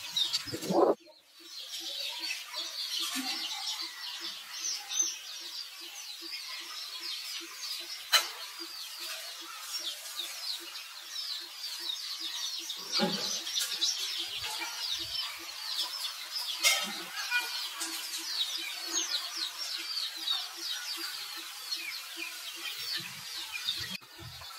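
Many small birds chirping busily in quick, short, descending notes, over a soft low pulse repeating about two or three times a second, with an occasional knock.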